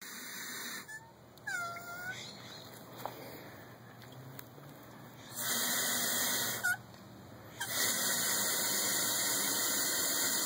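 Water spraying from a pistol-grip hose nozzle into a plastic watering can, in two spurts as the trigger is squeezed and let go: one a little over a second long about five seconds in, and a longer one from about seven and a half seconds on.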